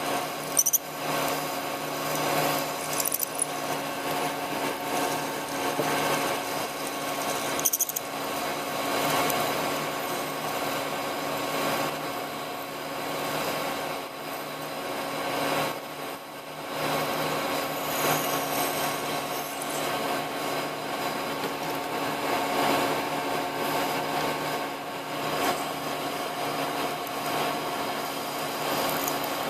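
Metal lathe running while a twist drill in a drill chuck is fed into the workpiece: a steady machine hum with a few fixed tones and cutting noise, with sharp clicks about a second in and again near eight seconds.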